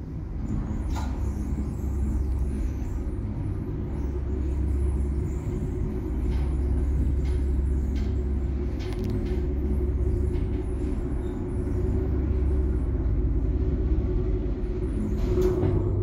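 A 1993 passenger lift travelling between floors: a steady low rumble from the moving car and its drive, with a few light clicks and rattles and a louder clunk near the end.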